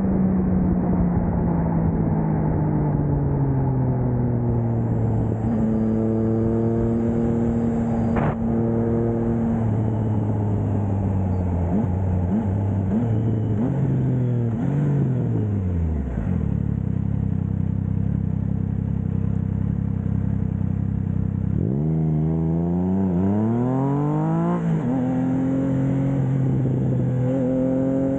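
Triumph Trident 660's three-cylinder engine through a Blackwidow 200mm aftermarket exhaust while riding. The note falls as the bike slows and settles to a steady idle for several seconds in the middle. It then climbs in a few quick rises through the gears as the bike pulls away, and holds a steady cruise near the end.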